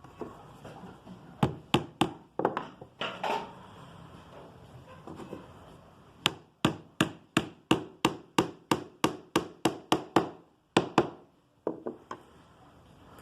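Light hammer taps on the sides of a freshly glued wooden half-lap frame, knocking the joints so they seat tight and come square. A few scattered taps, then a fast even run of about fourteen taps, some three or four a second, then a few more near the end.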